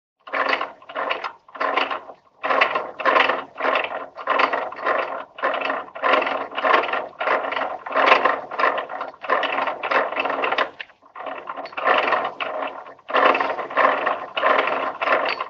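A ratcheting mechanical clatter in short repeated bursts, about two a second, with a few brief pauses, like a gear-and-pawl mechanism being cranked.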